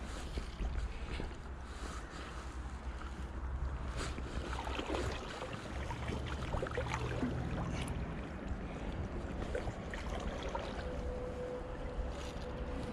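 River water sloshing and gurgling around an angler's legs as he wades into the river Tweed, with wind rumbling on the microphone.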